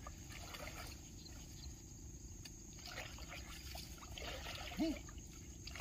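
Faint water trickling and sloshing around a small boat as it is pushed through shallow water thick with water lilies. Near the end there is one short, low voice sound, like a grunt of effort.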